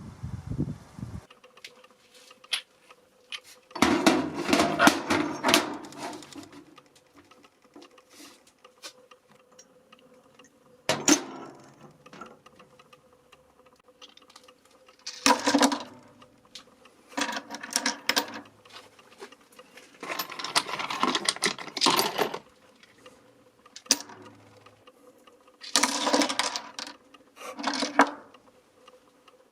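Small cast metal pieces clinking and clattering together as they are handled, in about seven separate bursts with short pauses between them.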